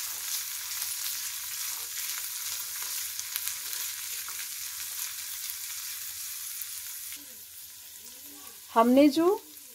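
Green peas, onion and green chillies sizzling in sesame oil in a frying pan while a spatula stirs them, with light scrapes against the pan. The sizzle stops about seven seconds in.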